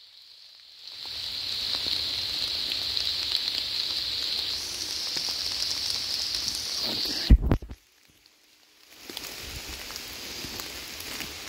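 Steady hiss of rain, strongest in a high band. The sound drops almost to nothing for about a second at the start and again for about a second and a half right after a sharp knock about seven seconds in.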